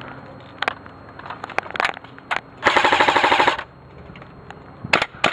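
Airsoft AK rifle firing one rapid full-auto burst of just under a second, about midway through, back in action after a jam. Scattered sharp clicks and knocks from handling the gun come before and after the burst.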